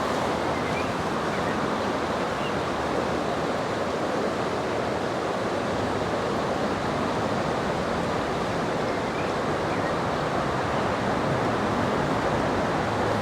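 Fast, shallow river water rushing steadily over rocks.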